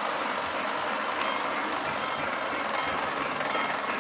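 Lionel Pennsylvania Flyer Lion Chief O-gauge electric toy steam train running around its track oval, a steady noise of motor and wheels on the rails.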